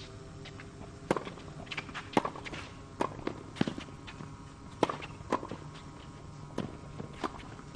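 Tennis rally on a hard court: a string of sharp ball strikes off racket strings, with ball bounces between them, coming every half second to a second and a half.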